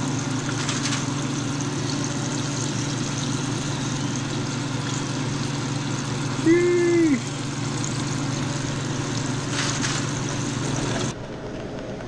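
Breaded sheepshead fillets deep-frying in a pot of hot oil: a steady sizzle over a low steady hum. About six and a half seconds in, a brief pitched sound lasting under a second stands out. The sizzling cuts off abruptly near the end.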